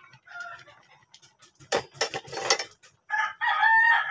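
A rooster crowing: one long held call starting about three seconds in, after a short cluck near the start. A loud, noisy rattling burst comes about two seconds in.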